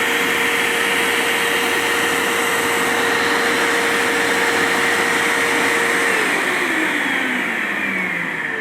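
Vax HF1400 upright vacuum's suction motor running steadily with the spill pickup tool attached, drawing liquid off the carpet; about six seconds in it is switched off and winds down with a falling whine.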